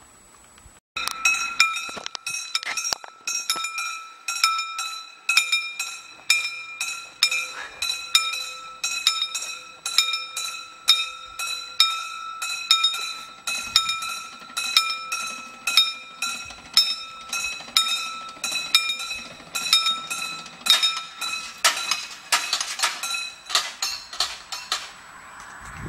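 Level crossing warning bell ringing in steady, evenly spaced metallic strikes, starting about a second in, while the crossing barriers are lowered for an approaching train.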